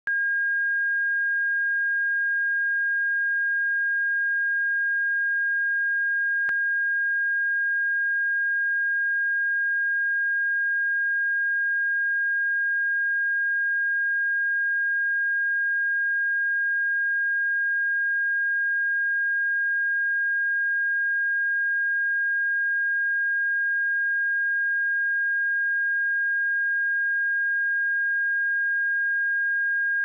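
Pure 1621 Hz sine-wave test tone, one steady pitch held without change.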